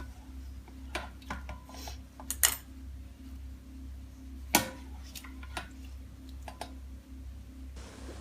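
Metal kitchenware clinking and knocking a few times, a pot and strainer handled while boiled mandarins and garlic are strained, over a steady low hum.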